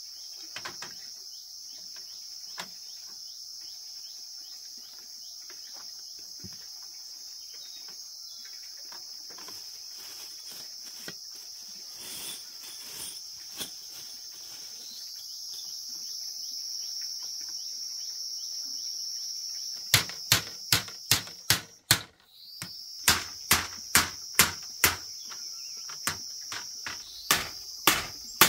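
Steady high-pitched insect chorus, with scattered light clicks and, from about two-thirds of the way in, a run of loud sharp strikes, roughly two a second, like hammering.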